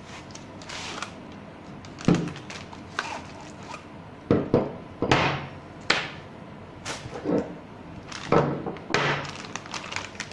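Unpacking an electric door lock on a wooden table: a cardboard box slid and opened, the lock body in its plastic sleeve and a metal strike plate set down, giving several irregular thunks and knocks with rustling between them, and a plastic bag crinkling near the end.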